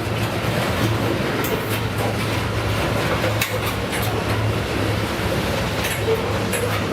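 BNSF freight train with its diesel locomotives running: a steady low drone over a noisy rumble, with a few sharp clicks.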